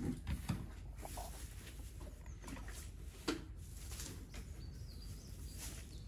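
Quiet rustling in straw bedding with a few faint clicks, one a little sharper about three seconds in, over a low steady hum.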